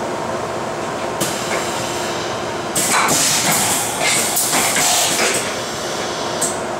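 Fryer MC-45 vertical machining center's double-arm automatic tool changer swapping tools. A click about a second in, then about two and a half seconds of clatter and hiss with several metallic clunks as the arm exchanges the tools, and a last click near the end, all over a steady hum.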